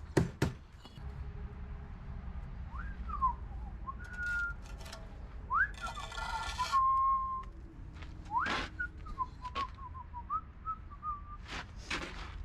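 A person whistling a casual tune, with sliding notes and a few held ones. Several sharp knocks sound around it, the loudest just at the start, and there is a short scraping noise midway.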